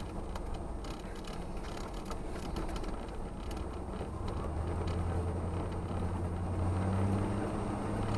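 Ford F-150's 5.0-litre (302) V8 heard from inside the cab, running at low revs as the truck drives on snow. About halfway through the drone deepens and gets louder as the engine pulls harder.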